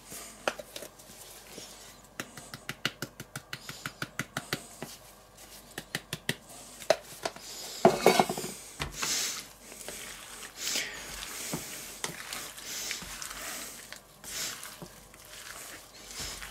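Diced raw chicken being seasoned in a stainless steel bowl: a spice shaker shaken in a quick run of clicks, about four a second. About eight seconds in there is a knock, followed by soft, irregular squishing and rustling as gloved hands toss the meat in the bowl.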